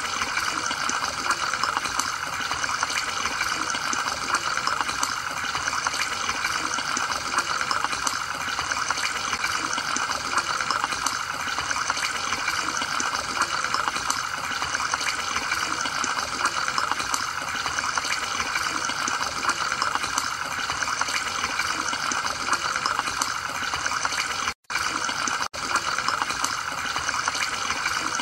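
Aquarium water bubbling and trickling steadily, the sound of the tank's filter running. The sound cuts out for an instant twice near the end.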